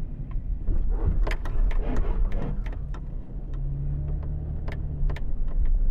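Car driving, heard from inside the cabin: a continuous low rumble of engine and road. There are a few sharp clicks, and a steady low hum comes in for about two seconds past the middle.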